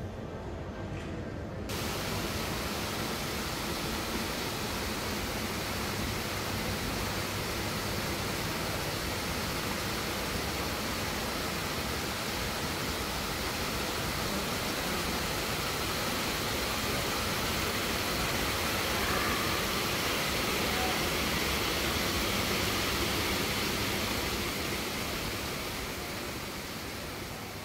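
Hundreds of split-flap display flaps, reused from an old airport flight-information board, flipping over together in a dense, steady flapping clatter. It starts suddenly about two seconds in, is loudest a little past the middle and dies away near the end as the board settles.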